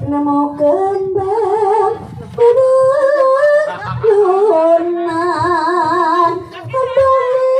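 A woman singing a slow Javanese sinden-style melody over loudspeakers, long held notes with a heavy vibrato that step up and down in pitch.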